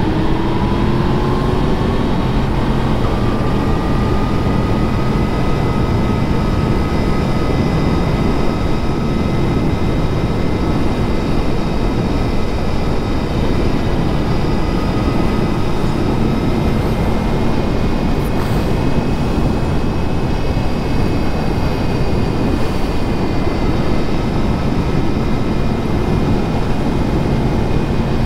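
Yamaha MT-10 SP's crossplane inline-four engine pulling hard, its pitch rising over the first few seconds, then holding steady at speed, with a loud rush of wind noise beneath it.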